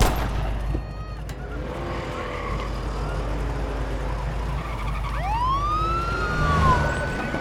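A single gunshot right at the start. About five seconds in, a police car siren starts up, rising in pitch and then holding a steady high wail.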